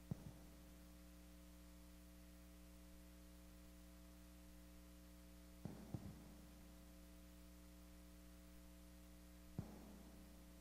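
Near silence: a steady low electrical hum, as from a church sound system, broken by a few short, faint knocks, once just after the start, twice close together about six seconds in and once near the end.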